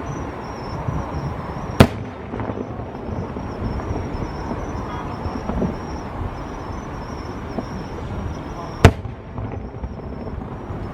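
Fireworks shells bursting: two sharp bangs about seven seconds apart, over a steady low rumble.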